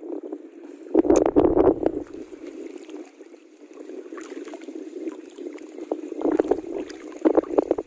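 Water lapping and sloshing against a small boat's hull, with two louder bursts of wind buffeting the microphone, about a second in and again near the end.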